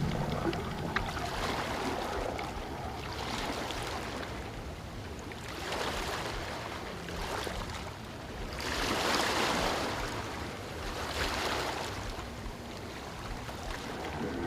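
Water noise swelling and fading in repeated surges every two to three seconds, like waves washing in.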